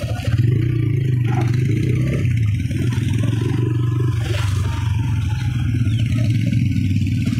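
Motorcycle engine running steadily at road speed, heard from the moving bike, with wind and road noise over it.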